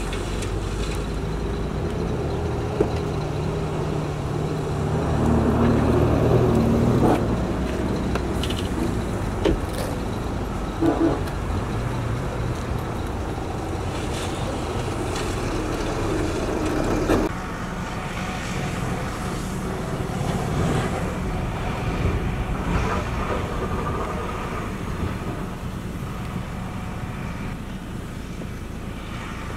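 Diesel engine of a hydraulic excavator working, rising under load for a couple of seconds about five seconds in, with a few sharp knocks of gravel and rock dropping into a steel dump-truck bed. The engine sound drops back and carries on more quietly from a little past halfway.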